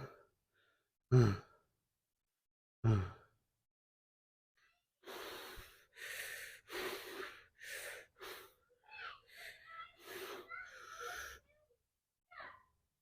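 A man breathing hard from heavy lifting: two short falling grunts, then a run of quick, wheezing breaths.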